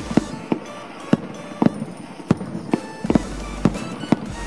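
Fireworks shells bursting in quick succession: about a dozen sharp bangs at irregular intervals, a few each second.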